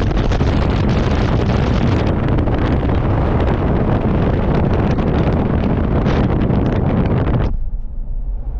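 Heavy wind buffeting the microphone in an open-top convertible driving with its roof down. The rushing noise cuts off abruptly near the end, leaving a quieter low rumble.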